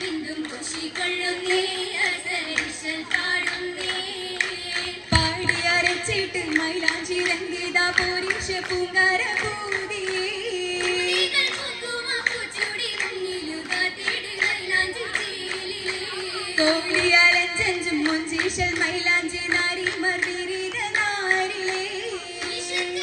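Group of girls singing a Mappila song for an oppana dance, with rhythmic hand clapping from the dancers.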